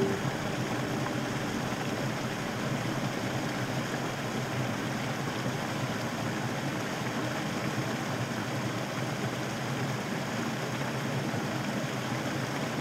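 Small creek waterfall, water running and splashing in a steady rush.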